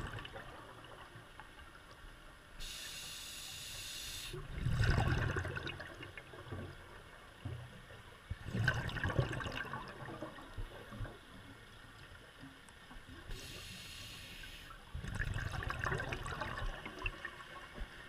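Scuba diver breathing through a regulator underwater: twice a steady hiss of an inhale, and between and after them the rushing, bubbling noise of exhaled air, three times in all.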